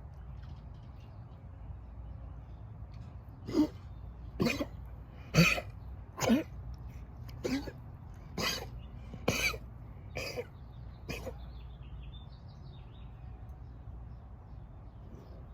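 A pet animal coughing in a fit of about nine short coughs, roughly one a second, starting a few seconds in; the first few are the loudest and the rest fade, ending a little past the middle.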